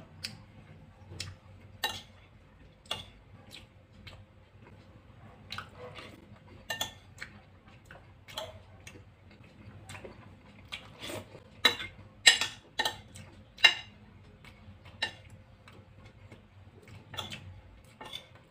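Eating sounds: a metal spoon clicking and scraping against a glass baking dish, with mouth clicks of chewing. They come as irregular sharp ticks, loudest about two thirds of the way through.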